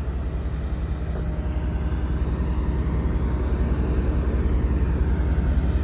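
A heavy vehicle engine running steadily with a low rumble, growing slightly louder over the few seconds.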